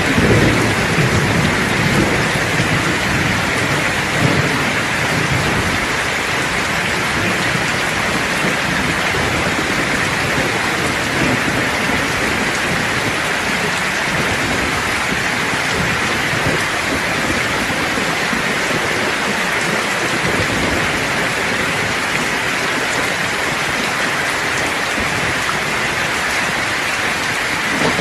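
Steady rain, with a low roll of thunder over the first several seconds that fades away, leaving the rain alone.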